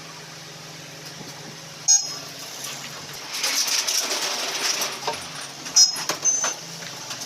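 Metal hand tools clinking and rattling against each other, with a sharp click about two seconds in and a few ringing metallic clinks near the end, over a steady low hum.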